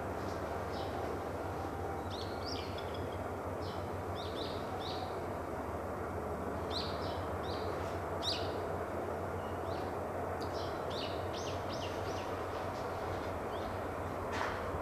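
Small birds chirping, short calls repeated in little clusters throughout, over a steady low outdoor rumble.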